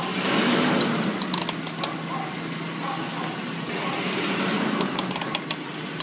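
A worn front wheel bearing on a Ford truck making a crunching noise over the vehicle's steady hum. Clusters of sharp clicks come about a second and a half in and again about five seconds in.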